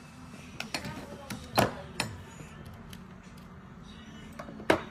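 Sharp metallic clicks and clinks of hand tools and scuba regulator parts being handled on a workbench: several light ticks, with one louder knock about a second and a half in and another near the end.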